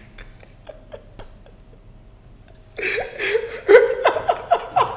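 Two people laughing. There are faint stifled giggles at first, then loud bursts of open laughter about three seconds in.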